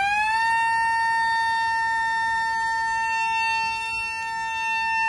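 Small electric motor and plastic propeller of a cheap rechargeable foam toy plane whining at speed on the floor: the pitch rises as it spins up in the first half second, then holds one steady high whine.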